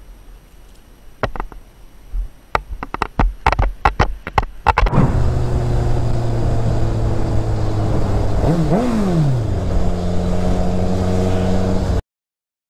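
A run of sharp clicks and knocks, then from about five seconds in a sport motorcycle's engine running steadily at highway speed. The engine rises and falls in pitch once about two-thirds through, then cuts off suddenly near the end.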